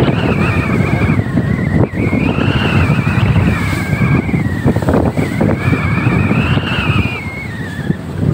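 Motor yacht underway in a choppy sea: dense, steady engine drone mixed with wind on the microphone and rushing water, with a thin high whine that wavers up and down for most of the time.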